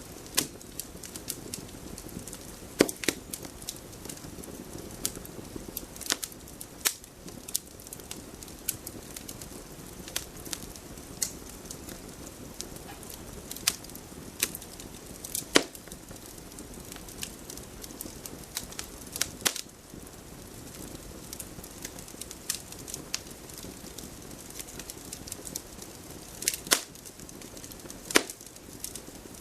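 Wood fire crackling: a steady low hiss of flames under irregular sharp pops and snaps, a few of them much louder than the rest.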